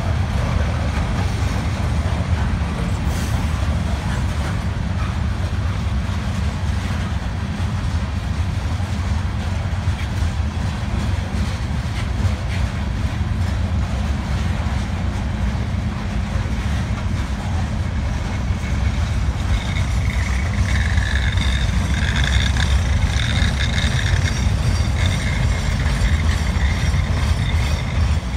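CSX freight train passing on its climb up a mountain grade: a steady, loud, low rumble. About two-thirds of the way through, a high wavering squeal joins in.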